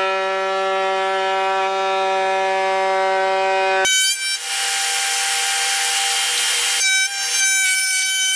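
Table-mounted router running at speed with a steady whine. About four seconds in the decorative edge bit bites into the wood block and a loud cutting hiss joins it, lasting almost to the end.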